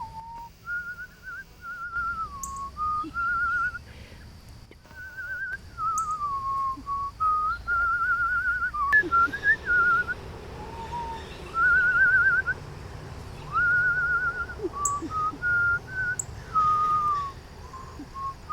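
A person whistling: a series of short, warbling phrases on a single clear tone, with brief pauses between them.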